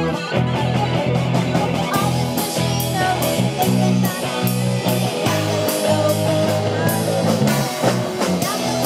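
Live rock band playing: distorted electric guitars over an electric bass, with a drum kit keeping a steady beat of regular cymbal and drum hits.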